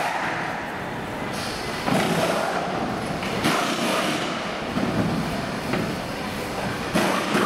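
Pneumatic wheel guns going off in several loud bursts during racing-car tyre-change practice, over general pit-lane noise.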